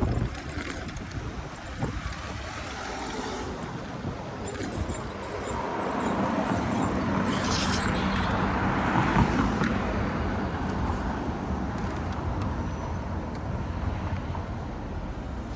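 A motor vehicle passing, its engine hum and tyre noise swelling to a peak about eight or nine seconds in and then fading, over steady street traffic noise.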